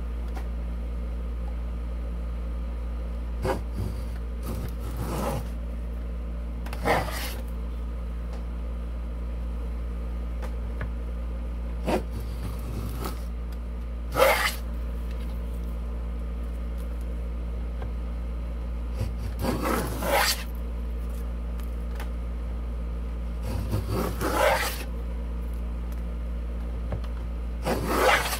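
Shop-made wooden grooving plane cutting a groove along a board: short scraping strokes as shavings peel off, several of them a few seconds apart.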